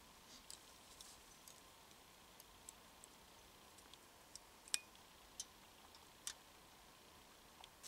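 Near silence broken by scattered faint clicks and ticks, about ten in all, from hands working a beaver trap set among twigs and brush; the sharpest comes a little before five seconds in, with a brief ring.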